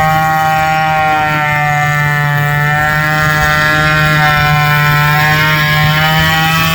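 Hot saw (racing chainsaw) engine running at high, steady speed, with a slight dip in pitch through the middle before it recovers.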